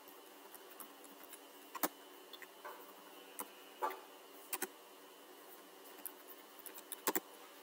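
Computer keyboard being typed on: about ten sharp key clicks at an irregular pace, with two close together near the end, over a faint steady background hiss.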